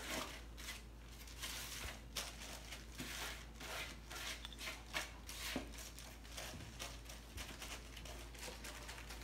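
Sauce-coated kimchi cabbage scooped and pushed by a plastic-gloved hand from a wooden bowl into a storage container: soft, irregular wet rustling with the crinkle of the thin plastic glove.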